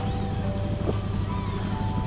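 A steady low mechanical hum, like an idling engine, runs under a simple melody of held, clean notes that step from pitch to pitch, with a few faint high chirps.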